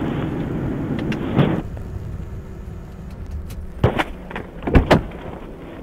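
Police patrol car's steady running noise that cuts off abruptly about one and a half seconds in, followed by two pairs of sharp clunks around four and five seconds in.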